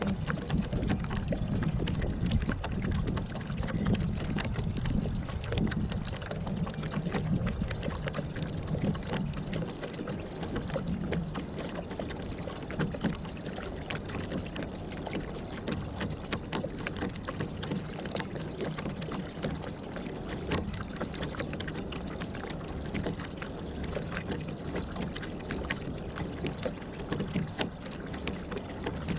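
Water splashing and lapping around a pedal-powered waterbike as it moves across the lake, a steady wash of small splashes, a little louder for the first ten seconds or so.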